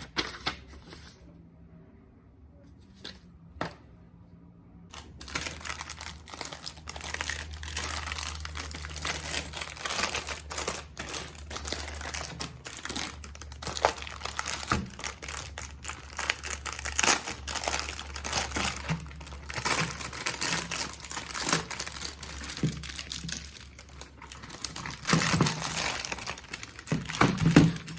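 Packaging crinkling and rustling as a keyboard is unboxed, beginning after a few quiet seconds and going on steadily, with many small clicks and knocks from handling.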